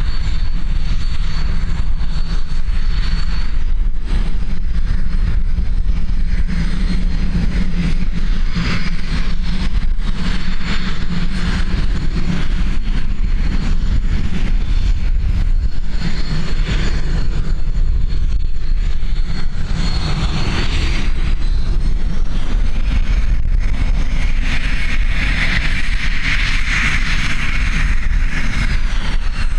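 Northrop F-5 fighters' twin General Electric J85 turbojets running at taxi power as the jets roll past: a steady high turbine whine over a low rumble. The whine shifts in pitch and the engine noise grows louder about two-thirds in as a jet passes close.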